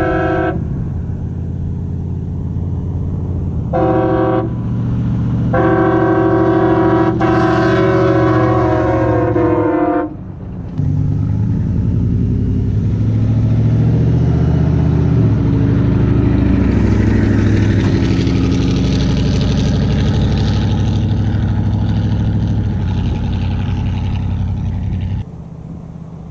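Truck-mounted HornBlasters Outlaw train horns blasting several chime tones at once: two short blasts, then one long blast of about four seconds, over the Chevy truck's idling straight-piped engine. Then the engine revs and its pitch rises and falls as the truck pulls away.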